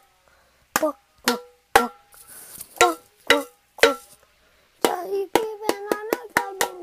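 Pringles can struck by hand as a makeshift drum: hollow knocks with a short pitched ring, in two groups of three about half a second apart, then a faster run of strikes from about five seconds in. A child's voice hums along under the faster run.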